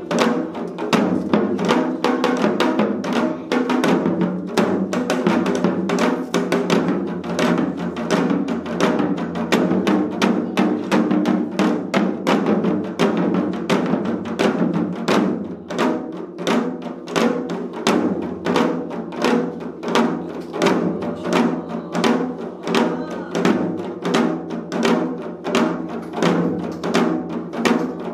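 Janggu, Korean hourglass drums, played together by four drummers in a seoljanggu rhythm: dense, rapid sharp stick strokes over deeper beats, settling into a steady pulse in the second half.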